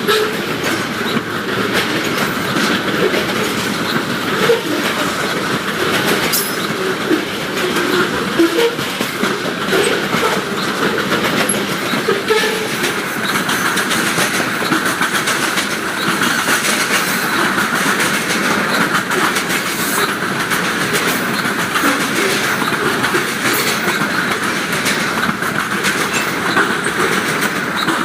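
Covered hopper cars of a slow freight train rolling past: a steady rumble of wheels on rail, with irregular clicks of the wheels over rail joints.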